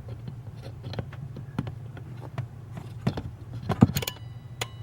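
Stock thermal turn signal flasher in a 1988–98 Chevy/GMC pickup, clicking steadily at a few clicks a second with the turn signal on, over a steady low hum.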